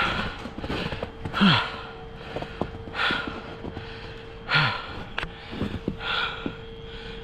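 A player breathing hard while on the move, one heavy breath about every second and a half, with scattered short clicks and knocks. A faint steady tone comes in about a second and a half in.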